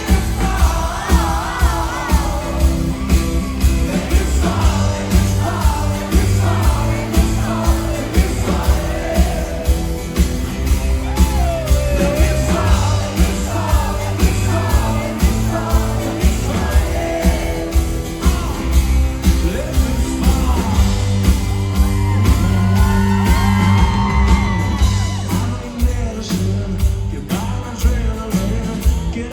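Live band playing amplified pop-rock in a large hall, with a lead vocal over a steady drum beat and shouts and whoops from the crowd.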